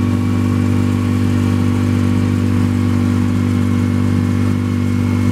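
Cazador golf cart's engine running at a steady pitch as the cart drives along on sand, heard from the driver's seat.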